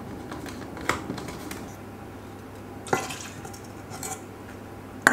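Almond milk dribbling and dripping from a nearly empty carton into a plastic measuring cup, with a few short knocks as the carton and cup are handled.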